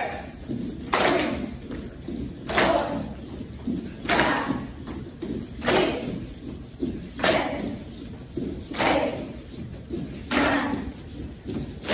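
A group of dancers stomping and landing in unison on a studio floor, a heavy thud about every second and a half with lighter steps in between, echoing in a large room.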